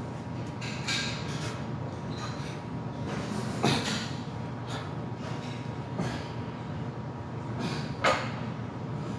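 Weight plates clanking as they are handled and loaded onto a barbell: four short separate knocks, the loudest two in the middle and near the end, over a steady low hum.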